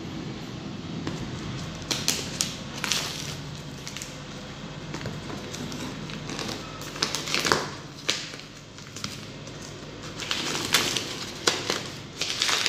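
A cardboard parcel being opened by hand: plastic wrapping crinkling and a box cutter scraping and slicing along the cardboard, in irregular short bursts with pauses between.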